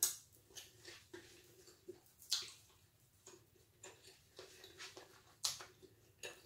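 A metal fork set down against a ceramic baking dish with a clink, followed by a few faint scattered clicks and smacks, the most distinct about two and a half and five and a half seconds in.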